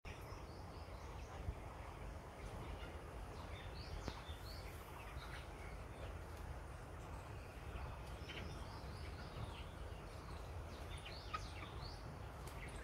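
A flock of young broiler chickens, about 24 days old, giving scattered short, high peeps over a steady low rumble.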